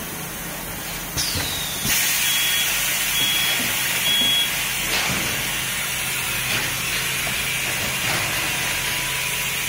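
Pillow compression packing machine: a click with a short falling whine, then about two seconds in a loud, steady hiss of air starts and keeps going. Three short high beeps sound over the start of the hiss.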